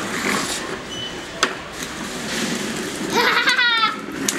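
A young child's high-pitched excited voice about three seconds in, a short squeal or laugh, over a steady background hubbub, with a sharp click about one and a half seconds in.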